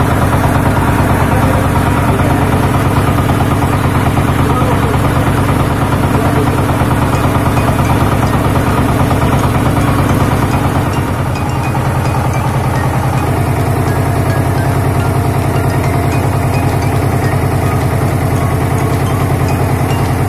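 The engine of a wooden passenger boat running steadily while the boat is underway. Its note shifts and dips slightly about eleven seconds in.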